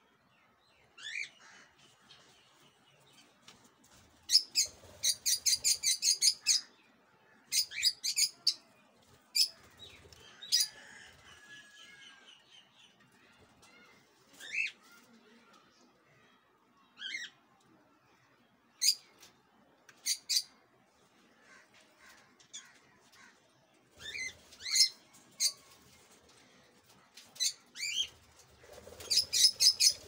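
Caged cockatiels chirping: short, high calls, some in quick runs of several at a time, others single notes with a few rising sweeps, scattered throughout.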